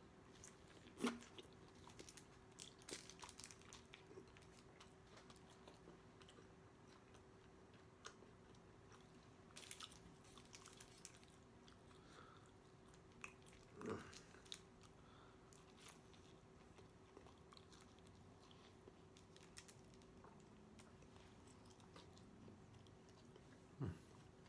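Faint close-up biting and chewing of a soft corn-tortilla steak taco: small wet mouth clicks, with louder mouth noises about a second in, around fourteen seconds and near the end.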